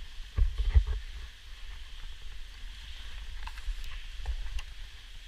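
Bumps and clicks close to the microphone from handling and rope gear, a loud cluster about half a second in and a few lighter clicks near the end, over a steady hiss.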